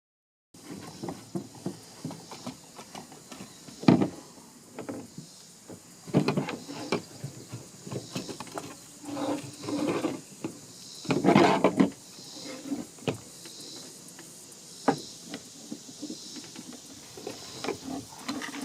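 Clicks, knocks and rattles of hand tools and hands working on the plastic housing of a Troy-Bilt TB575SS string trimmer as the front screws come out and parts are taken off. One sharp knock about four seconds in, and longer clatters around six and eleven seconds.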